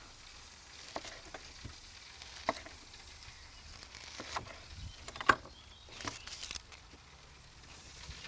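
Food sizzling faintly on a charcoal grill, with a handful of sharp clicks and knocks of vegetables and utensils being set on the grate, the loudest about five seconds in.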